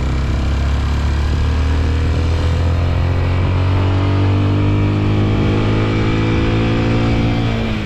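Motorcycle engine running under way, its pitch rising steadily over several seconds as it pulls, then dropping sharply near the end.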